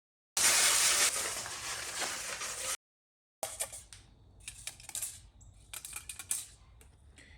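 A loud, even hiss lasting a couple of seconds, then, after a brief cut, scattered light metallic clinks and taps of tools being handled on the bare engine.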